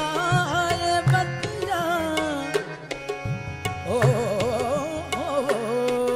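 Qawwali music: a male lead voice sings fast, ornamented melismatic runs over held harmonium notes and tabla strokes.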